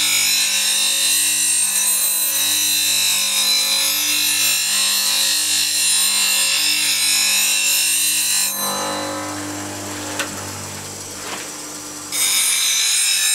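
Bench grinder's CBN wheel grinding a steel woodturning gouge held freehand: a steady gritty hiss of steel on the wheel over the grinder's motor hum. About eight and a half seconds in the gouge comes off the wheel and only the motor hum remains, with a couple of light ticks, before grinding resumes near the end.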